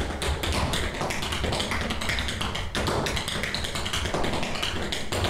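Metal-plated tap shoes striking a wooden floor in a fast, dense stream of taps.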